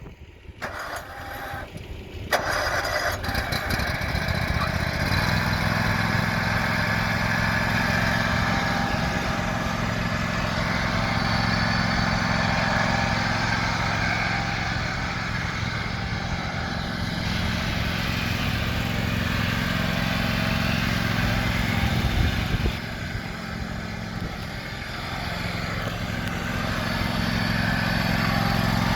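John Deere X324 riding mower engine started: a short stretch of clicking, then the engine catches about two seconds in and runs steadily. It slows somewhat about three-quarters of the way through and comes back up near the end.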